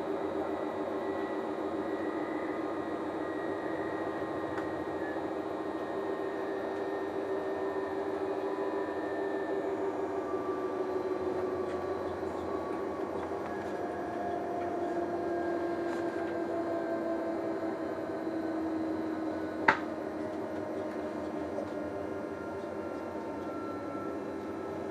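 Steady running noise inside the passenger cabin of an Italo ETR 575 (Alstom AGV) high-speed train, with faint whining tones that slowly fall in pitch. A single sharp click comes about twenty seconds in.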